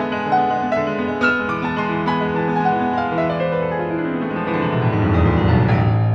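Steinway grand piano played solo: a flowing passage of notes, then a fast run sweeping down into the bass from about three seconds in, swelling to loud low notes that ring on near the end.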